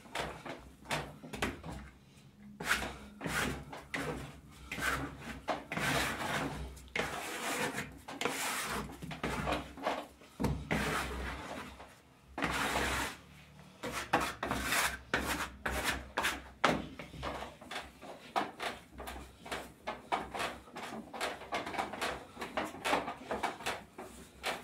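Hands kneading a stiff sweet yeast dough for rosca bread on a work surface: irregular rubbing and pressing strokes with short pauses.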